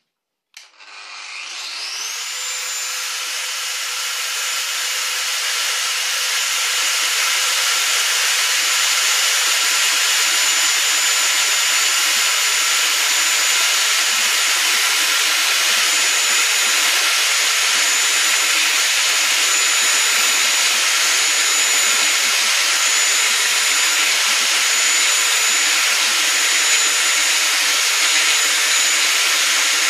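Angle grinder at 11,000 rpm driving a Dry Magic blind-hole drill bit into hard tile. The motor starts about half a second in with a rising whine that settles into a steady high whine over a grinding hiss. The hiss grows louder over the first several seconds, then holds steady.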